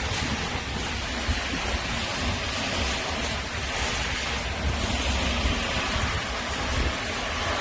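Steady outdoor noise of light rain and street traffic, with wind rumbling unevenly on the microphone.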